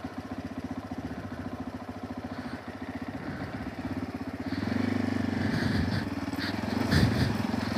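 Motorcycle engine idling with a fast, even pulse, then revving up about four and a half seconds in as the bike moves off on a steep dirt track. A few short knocks come near the end.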